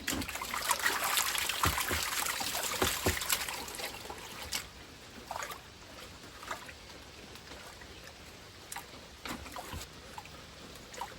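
Water sloshing and swirling in a gold pan as it is shaken and washed. The sloshing is strongest for the first few seconds, then drops to a few small splashes and trickles.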